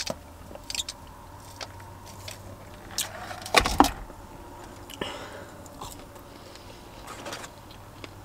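Eating and food-handling sounds inside a parked car: a sip through a straw, then small clicks and rustles as fast food is picked up from its packaging, with a heavier knock and a few louder crackles about three and a half seconds in.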